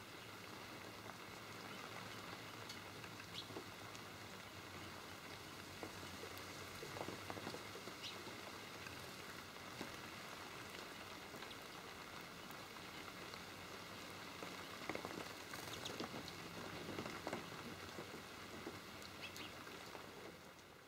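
Faint irregular pattering of small ticks and rustles over a steady hiss.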